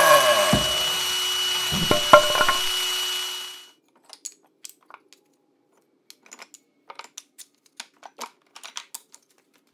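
A power drill whirring loudly, with a sharp click about two seconds in, stopping about three and a half seconds in. Then scattered light knocks and clacks of wooden offcuts bumping together as they are picked out of a drawer.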